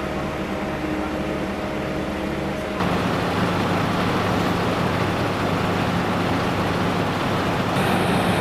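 A vehicle engine running with a steady drone. About three seconds in the sound changes suddenly and gets louder.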